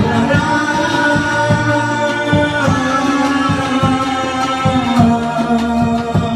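Music: a song with a steady beat under long held notes, with singing.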